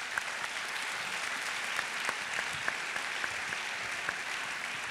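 Audience applause in a large hall: many people clapping steadily, a dense patter of handclaps with a few sharper single claps standing out.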